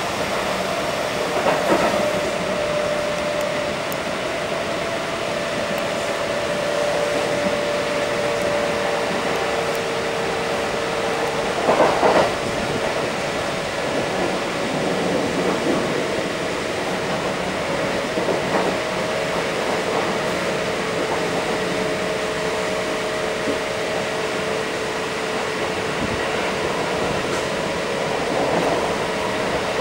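Inside a Kintetsu 1230 series electric train running at speed: a steady rumble and hiss of wheels on rail with a couple of steady humming tones, broken by a few brief louder clatters, the strongest about 12 seconds in.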